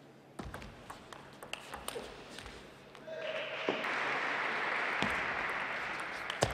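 Table tennis rally: a celluloid ball clicking in quick, irregular hits off bats and table for about three seconds. Then a brief voice and steady crowd applause, as the point ends, through to the end.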